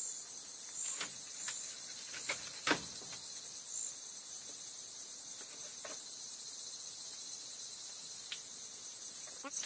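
Steady high-pitched chorus of night insects, with a few scattered faint clicks and one louder snap nearly three seconds in.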